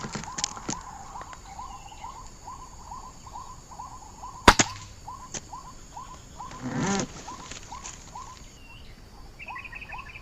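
A short call repeated evenly about three times a second, from an electronic MP3 bird caller looping white-breasted waterhen calls as a hunting lure. A single sharp, loud crack comes about four and a half seconds in, with a brief louder rustle a couple of seconds later.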